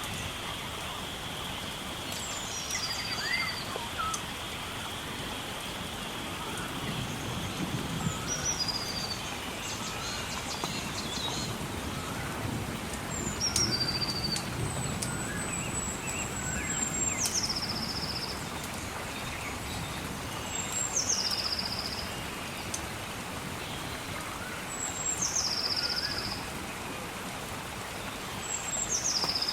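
Steady rain-like noise with a bird calling over it again and again, each call a high note that drops in pitch in a step or two, about every four to six seconds. A few faint crackles in the first half and some low rumbling swells.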